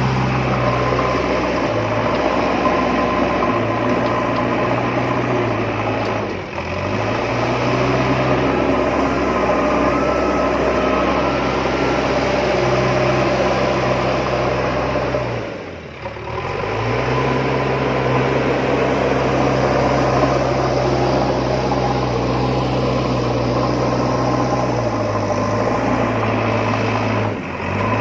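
A vehicle motor running steadily with a low hum and mechanical clatter over it. It drops out briefly three times: about six seconds in, midway, and just before the end.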